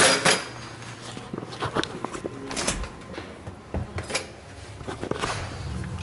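A run of knocks, clicks and clatters from hands and tools working around a refrigerator, the loudest right at the start, over a low steady hum.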